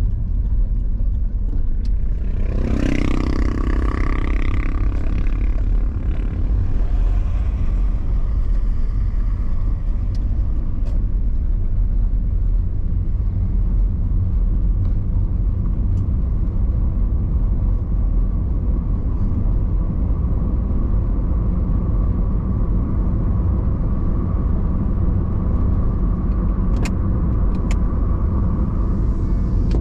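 A car being driven along a highway, with a steady low rumble of engine and tyres on the road. About two to six seconds in, a pitched engine note rises briefly over the rumble.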